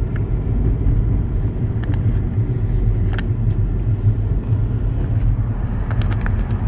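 Car on the move heard from inside the cabin: a steady low rumble of engine and road noise, with a few light clicks scattered through it.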